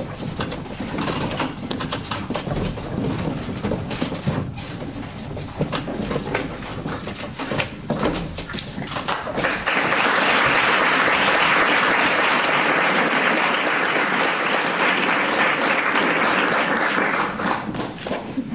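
Scattered knocks and shuffling, then about ten seconds in an audience breaks into steady applause that dies away near the end.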